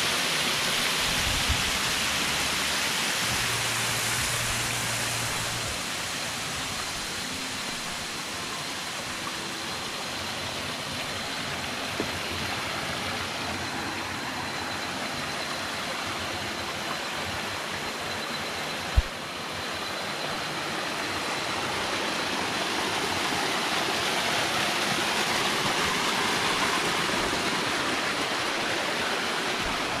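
Small waterfall splashing over rocks: a steady rush of falling water that eases a little in the middle and swells again toward the end, with a single knock about two-thirds of the way through.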